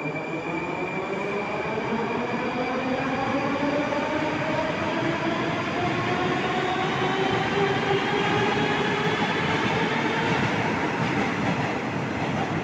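Metro train pulling out of the station: the electric traction motors give a whine of several tones that rises steadily in pitch as it accelerates, over the rumble and rattle of the wheels on the rails. It grows louder over the first few seconds.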